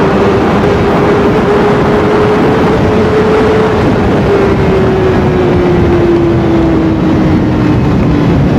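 Honda CBR1000RR's inline-four engine on its stock exhaust, running at very high speed in fourth gear. Its note rises slightly, then falls steadily as the bike slows, under heavy wind rush.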